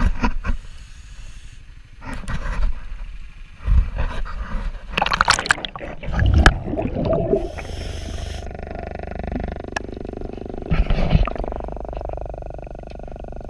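Scuba diver's regulator exhaust bubbles rumbling underwater in irregular bursts, with a hiss a little after halfway. In the second half a steady hum with a faint whine takes over, broken by one more burst of bubbles near the end.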